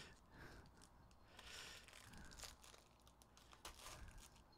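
Faint crinkling and tearing of clear plastic shrink-wrap being pulled off a trading-card box, with a few light clicks.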